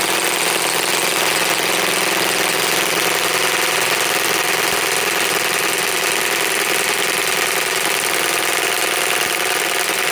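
Milwaukee M18 Fuel Gen 3 high-torque impact wrench (2967-20) hammering steadily on speed one in reverse on a tight nut. The nut does not break loose: speed one isn't quite enough.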